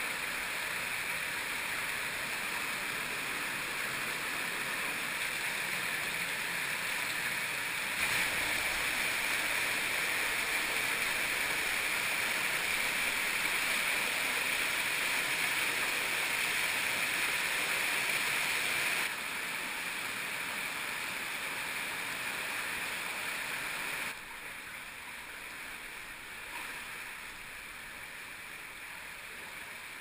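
Underground stream rushing and splashing over rocks and small cascades, a steady rush of water. It jumps louder about eight seconds in and drops back twice later, quietest near the end.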